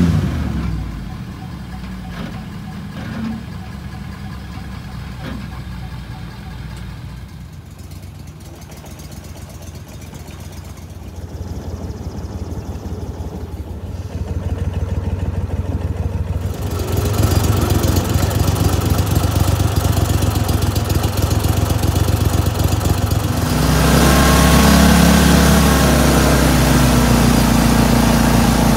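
Engines running: a pickup truck's engine revs briefly at the start, then idles. Engine noise swells through the middle, and near the end a Go Devil surface-drive mud motor runs hard, pushing the boat under way.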